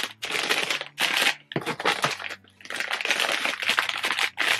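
Crinkly plastic packets being handled and rustled, in uneven bursts with a short pause about two seconds in.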